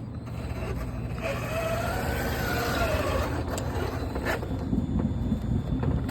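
Low, steady motor-vehicle rumble that builds over the first seconds, with a faint tone that rises and falls about a second in.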